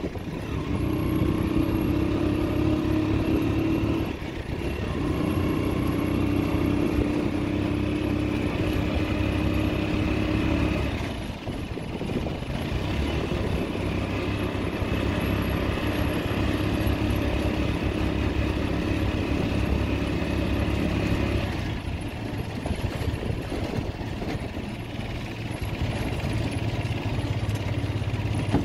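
Engine of a small motor vehicle running as it drives along, a steady drone whose note shifts and whose level dips briefly about four, eleven and twenty-two seconds in.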